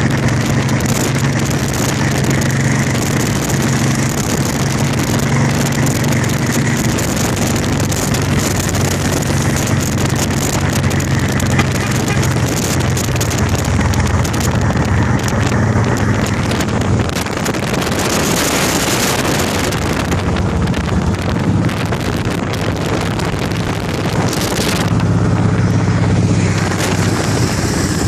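Cruiser motorcycle engines running steadily at road speed, with heavy wind noise on the microphone. The engine drone grows a little louder near the end, as a bike rides alongside.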